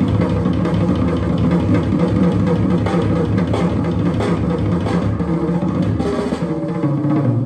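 Drum-heavy instrumental test music with deep drum strikes, played back through a pair of Altec Lansing Legato AS-21 speakers during a high-frequency test.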